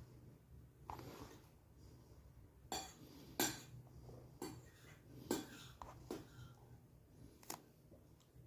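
A utensil clinking and scraping against a dish in short, irregular knocks about once a second, as hot sauce is stirred into food.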